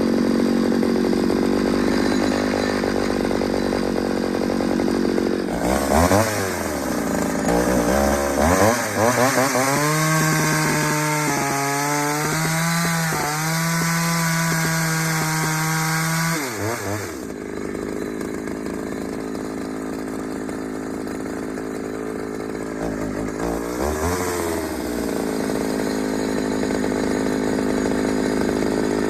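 Ported Pioneer two-stroke chainsaw, running on a swapped carburetor. It revs up and holds high revs for about six seconds with slight wavers, as if in a cut. It drops to a lower speed, then revs up again near the end.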